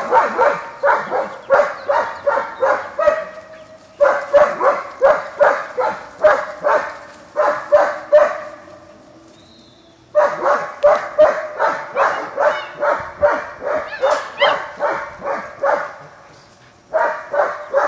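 German Shepherd puppy barking over and over, high yapping barks about three a second, in long runs broken by short pauses.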